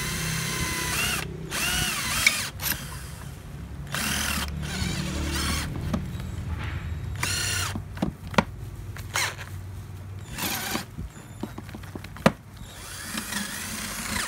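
Handheld electric drill with a 5 mm bit boring a centre hole into the end of a steel rotor shaft. It runs in several short bursts, its whine rising and falling as the trigger is worked, with a few sharp clicks in the second half. The hole is drilled so the rotor, stuck at its tail bearing, can be driven out.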